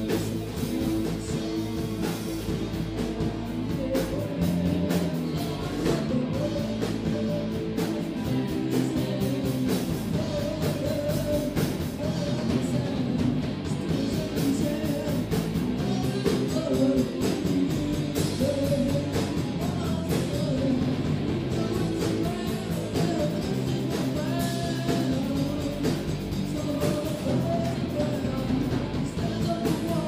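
Rock band playing live: a male lead singer over electric guitars, bass guitar and a drum kit keeping a steady beat.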